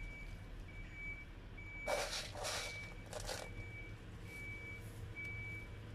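A vehicle's reversing alarm beeping steadily, about once a second, over a low steady hum. About two seconds in, three short rustles as the potted plants are handled; these are the loudest sounds.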